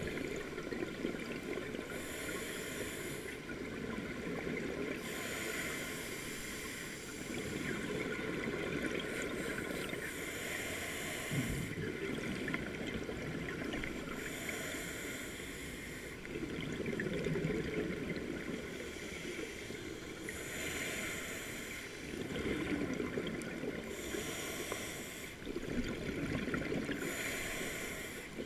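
Scuba diver breathing through a regulator underwater: a hiss on each inhale alternates with a rumble of bubbles on each exhale, one breath every few seconds.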